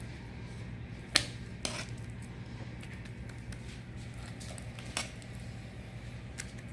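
A few sharp clinks and taps of a utensil against a cast-iron skillet as mashed potatoes are spooned around its edge, the loudest about a second in, over a low steady hum.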